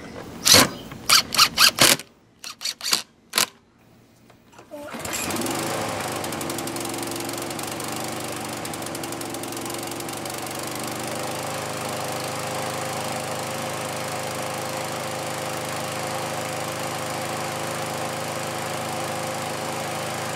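A few sharp clicks and knocks, then about five seconds in a Briggs and Stratton Platinum 7.25 hp single-cylinder lawn mower engine catches, rises briefly in pitch and settles into a steady run. It is starting and running on its freshly re-corded recoil starter.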